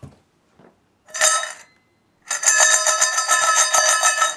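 Metal jingling as something is shaken: a short shake about a second in, then a steadier shake lasting about two seconds.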